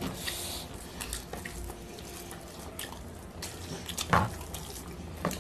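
Close, wet eating sounds: fingers mixing rice and curry on metal plates and open-mouthed chewing, with small smacking ticks throughout and a louder wet mouth sound about four seconds in.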